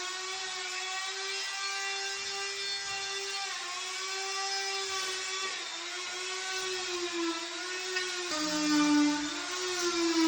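Handheld power tool motor running with a steady high whine, its pitch dipping briefly a few times and lowest about eight seconds in.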